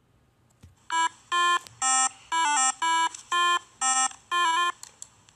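A short electronic beeping tune: eight brief tones at about two a second, some stepping quickly between pitches within a note.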